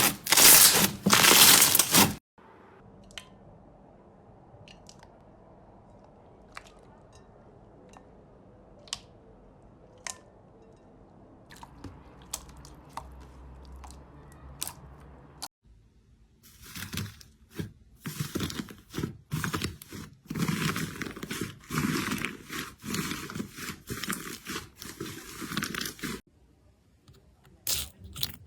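Crunchy slime being squeezed and pressed by hand. It opens with a burst of loud crunching, then goes into a long quiet stretch with only faint scattered clicks. About halfway in come some ten seconds of repeated crunching and crackling, and a little more near the end.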